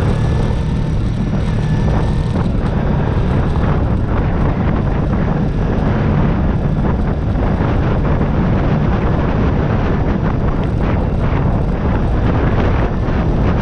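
Motorcycle riding along, its engine a steady low rumble under wind rushing over the camera microphone.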